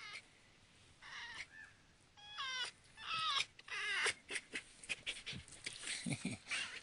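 A tame red fox gives a series of high whining calls whose pitch wavers up and down. These are followed by a run of quick, short clicking sounds over the last couple of seconds.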